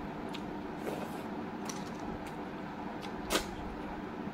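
Eating sounds from snail curry eaten by hand: scattered sharp clicks and smacks as snail shells are handled and sucked at the mouth, the loudest about three seconds in, over a steady background hum.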